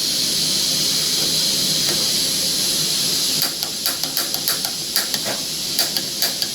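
Propane hissing steadily from a camp stove burner. About three seconds in, the stove's piezo igniter starts clicking repeatedly, about three clicks a second, as it is worked to light the gas.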